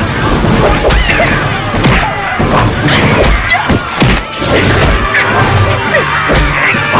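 Fight-scene soundtrack: many crashing and thudding blows, one after another, over music.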